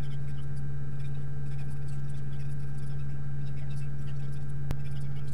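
Steady low drone of a semi truck's engine running, heard from inside the cab, with faint light ticks and rattles and one sharp click near the end.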